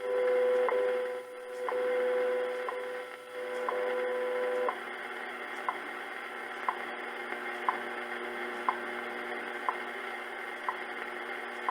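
Shortwave time-signal broadcast from a NIST time station, received on a National SW-54 tube receiver: a steady tone with a short tick every second. About five seconds in the tone stops and the once-a-second ticks carry on over a steady hum and static, leading up to the spoken time announcement.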